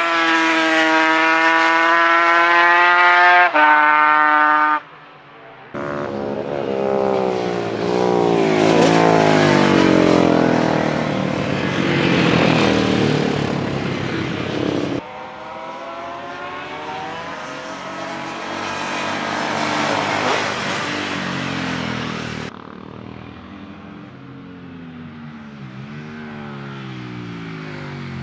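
Classic racing motorcycle engines running hard on track: engine pitch climbing and dropping with gear changes, with one pitch that sweeps down as a bike passes. Several short passes are cut together, so the sound breaks off abruptly a few times.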